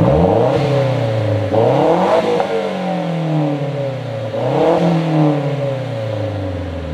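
Mazda 3 MPS 2.3-litre turbocharged four-cylinder, breathing through a CorkSport exhaust, blipped three times. Each quick climb in revs is followed by a slower fall back toward idle.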